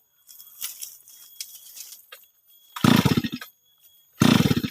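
Stihl MS 382 two-stroke chainsaw being pull-started: twice the engine fires for about half a second and cuts out again without catching, the pulls about a second and a half apart. Faint rustling and clicks come before the first pull.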